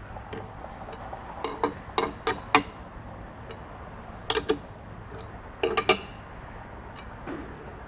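Steel chuck key clanking and clicking in the jaw screws of a lathe's four-jaw chuck as the jaws are adjusted and tightened on the bar to true it up. The sharp metallic knocks come in three quick clusters, over a steady low shop hum.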